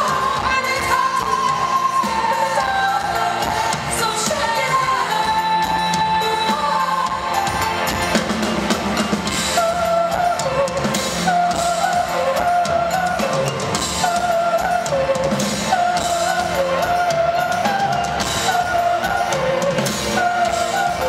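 Live rock band playing in a concert hall: a woman sings lead over a drum kit and the full band, with a repeating melodic figure from about ten seconds in.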